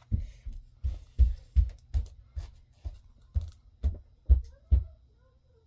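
Comic book being flipped through and handled: a string of soft, dull thumps, about two or three a second, with light paper rustling.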